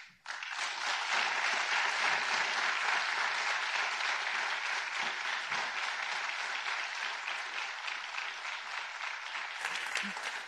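A large seated audience applauding: many hands clapping at once, starting abruptly and easing off slightly toward the end.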